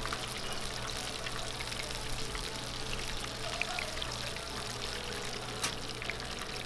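Battered squid deep-frying in a pot of hot oil: a steady crackling sizzle, with one sharp click near the end.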